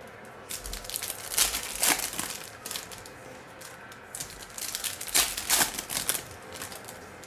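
Plastic trading-card pack wrapper crinkling as it is handled and torn, in two spells: from about half a second in to about two seconds, and again from about four and a half to six and a half seconds.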